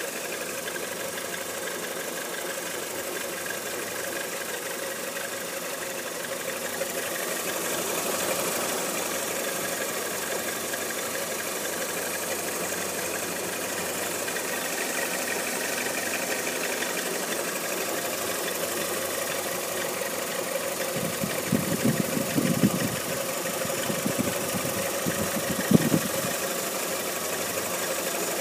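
Chevrolet Lacetti engine idling steadily with a knock that appeared after its timing belts and idler/tensioner rollers were replaced. A few louder low thumps come about three quarters of the way through.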